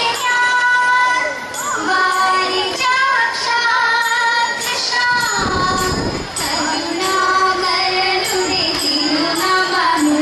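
Young female voices singing a Thiruvathira song in long, held, melodic lines with gliding notes, over a light, regular beat of short strikes that keeps time for the dance.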